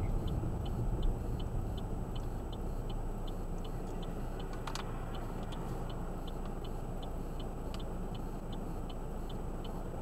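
Car cabin noise of a vehicle idling at a stop, with a steady, evenly spaced light ticking like a turn-signal indicator.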